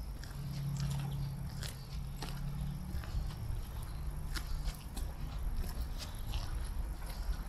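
Footsteps crunching on gravel, heard as irregular sharp steps, over a low rumble and a steady low hum that is strongest for the first few seconds.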